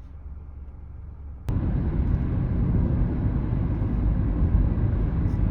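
Steady low rumbling noise of a vehicle running, which jumps suddenly much louder about a second and a half in and stays loud.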